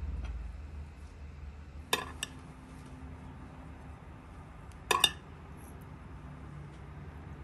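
Metal spoon clinking against a porcelain plate while rice pilaf is served: two clinks about two seconds in and another quick pair about five seconds in.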